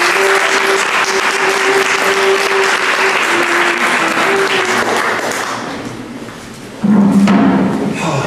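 Audience applauding, the clapping dying away over about six seconds, over violin music; about seven seconds in, a louder passage of the music starts suddenly.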